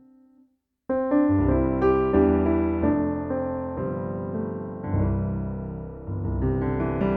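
Keyboard workstation played with a piano sound: a held note dies away, then slow chords begin about a second in, changing roughly once a second.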